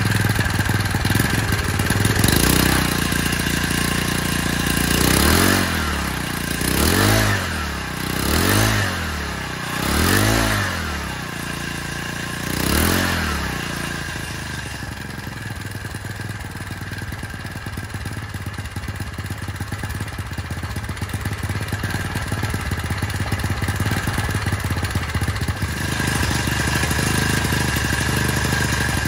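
Hangkai 4 hp single-cylinder four-stroke outboard motor, fitted with a homemade exhaust muffler pipe, running out of the water. Its throttle is blipped about six times in the first half, each rev rising and falling back, and then it settles to a steady idle.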